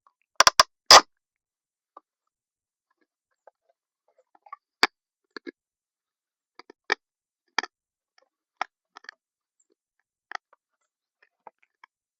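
Knocks and clicks from working on an old radio speaker's parts: a few loud sharp knocks in quick succession about half a second to a second in, then scattered lighter clicks and taps every second or so.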